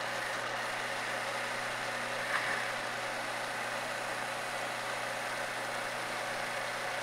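Craftsman flexible-shaft tool running steadily, its stationary motor turning a hand-held wire wheel through a cable as it brushes rust off a cast vise. A brief louder moment about two and a half seconds in.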